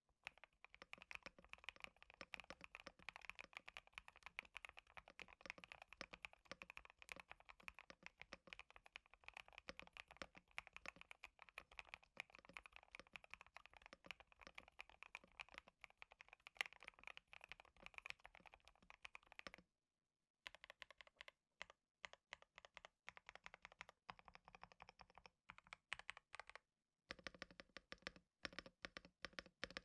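Typing on a KBD67 Lite mechanical keyboard fitted with JWK Epsilon switches, modded with case foam, PE foam and tape: rapid, continuous keystrokes for about twenty seconds, then shorter bursts of typing with brief pauses between them.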